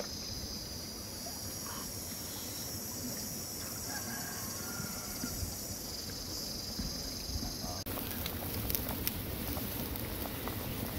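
A steady high insect-like drone over faint outdoor ambience, giving way about eight seconds in to a wok of broth boiling hard over a wood fire: a dense, fine crackle and popping of bubbles.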